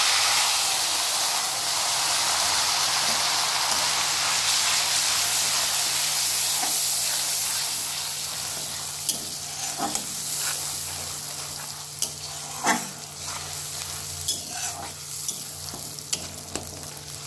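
Grated onion frying in hot oil in a kadai: a loud sizzle that slowly dies down. In the second half a metal spatula clinks and scrapes against the pan now and then as it is stirred.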